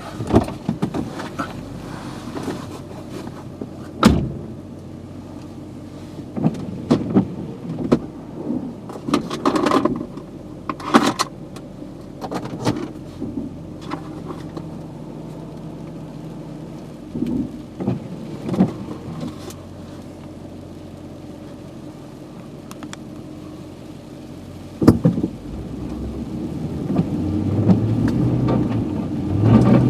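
Nissan Titan pickup's engine running at low speed while driving off-road in snow, with frequent short knocks and clunks as it moves. Near the end the engine gets louder.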